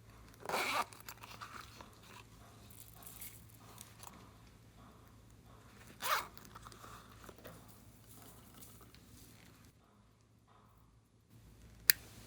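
Slime and its mix-ins being handled by hand: two short crackly rasps, about half a second in and about six seconds in, with faint rustling between them and one sharp click near the end.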